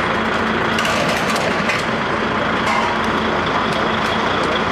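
Heavy vehicle engine running steadily with a constant low hum, under a continuous rush of outdoor noise.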